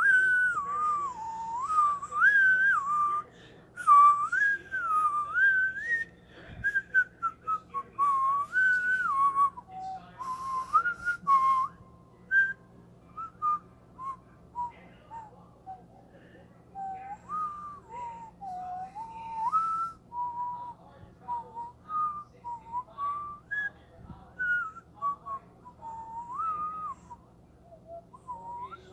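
A person whistling a wandering tune, in short rising and falling phrases, fuller in the first half and more broken and quieter after about 12 seconds.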